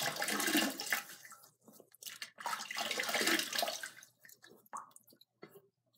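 Water running and splashing in a bathroom sink as a man rinses shaving cream off his face, in two stretches, one at the start and a longer one from a little over two seconds in.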